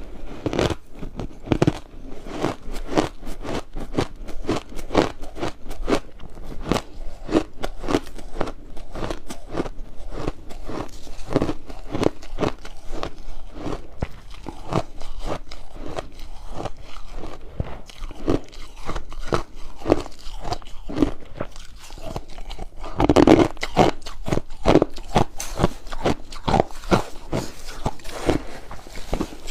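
Ice being bitten and crunched between the teeth in big bites, then chewed: a steady run of sharp cracks, with a louder crunch about three-quarters of the way through.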